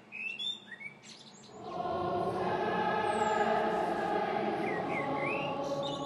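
Birds chirping, then a group of voices swells in about two seconds in and holds a long sung chord, with birds still chirping over it.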